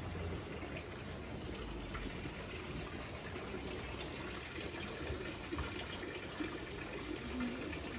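Hot spring water running and trickling steadily into an outdoor rock bath.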